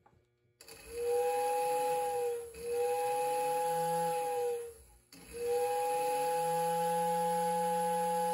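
Steam-locomotive-style chime whistle sounding a steady chord in three long blasts, the third still sounding at the end.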